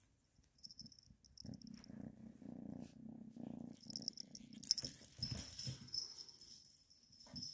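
Kitten purring close to the microphone, with a light jingle from the bell in its felt toy ball as the ball is batted about, at first briefly and again from about halfway through.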